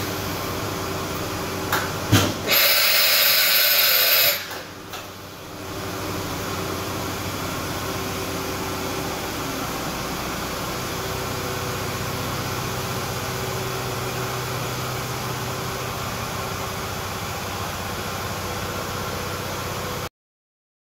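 Smart SM1565 CNC vertical machining center running. Two sharp clunks are followed by a loud hiss of air lasting nearly two seconds, then a steady machine hum with a faint steady whine that cuts off abruptly near the end.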